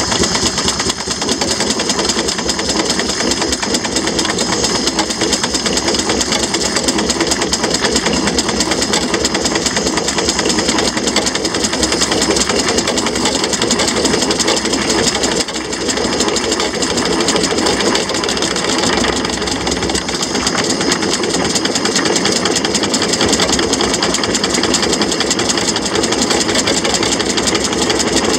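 A 6-inch scale Samson steam traction engine running on the road, a fast, steady mechanical beat from the engine and its motion, dipping briefly about halfway.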